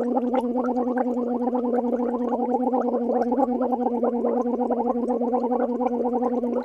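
A person gargling liquid at the back of the throat, holding one steady voiced tone while the liquid bubbles rapidly; it cuts off suddenly at the end.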